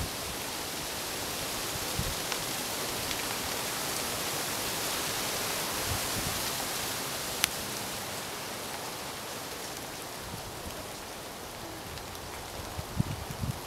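Steady hiss of rain falling, with a sharp click about seven seconds in; low wind buffeting on the microphone near the end.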